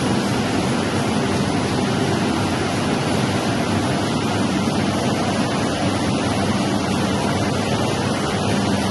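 Steady, unbroken machine noise of a running central-drum printing press and its drying system in the press hall.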